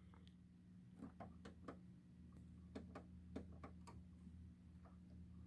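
Faint clicks of buttons being pressed on a Hammond XK-1 organ's control panel while paging through its menu, about seven in an irregular run, over a low steady hum.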